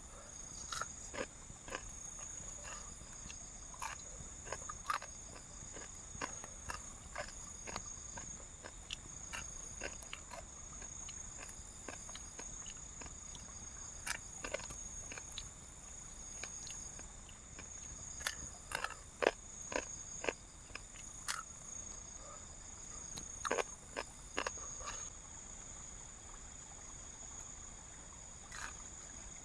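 A steady, high-pitched chorus of night insects such as crickets, with many irregular sharp clicks and crackles up close, several of them louder around the middle.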